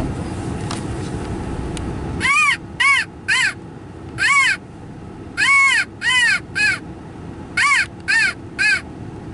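A crow cawing: about ten short, harsh caws, mostly in runs of three, starting a couple of seconds in. Before the first caw there is a low wind-like rumble, which drops away as the cawing begins.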